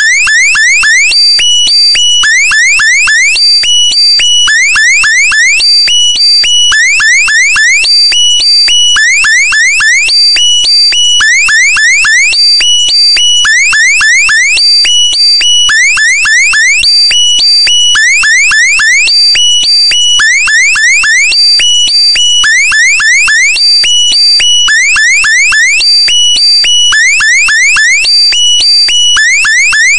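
Loud electronic alarm-like sound effect: clusters of quick rising pitch sweeps repeat about every second and a half over steady, shrill held tones.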